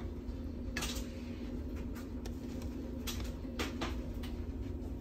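Plastic rice paddle scooping cooked rice from a rice cooker's pot and serving it onto a plate: several short clicks and taps of the paddle against pot and plate over a steady low hum.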